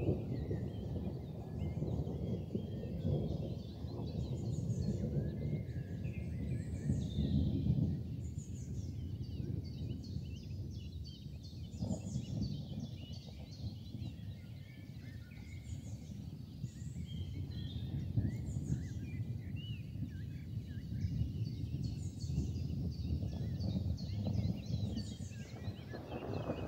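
Outdoor evening ambience: many small birds chirping and twittering, high-pitched short calls all through, over a steady low rumble.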